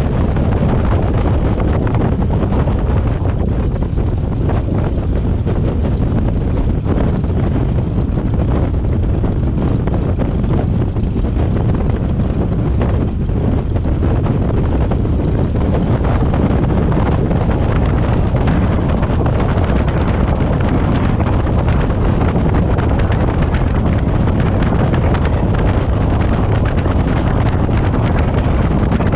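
Steady rush of wind over a tail-mounted microphone, with the drone of a Cessna's piston engine and propeller underneath.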